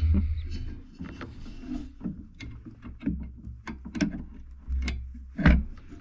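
Metal clinks and knocks of a crescent wrench and a spanner working a carburetor mounting bolt loose on a VW engine, scattered through, with a louder knock about five and a half seconds in, over a low rumble.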